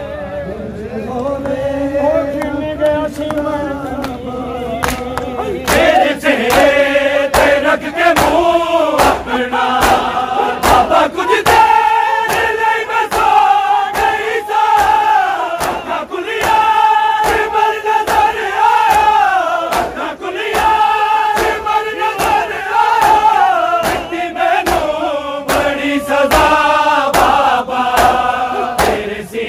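A Punjabi noha chanted by a group of men's voices in unison. From about six seconds in, a crowd of men beating their bare chests (matam) joins in, keeping a steady beat of about two slaps a second.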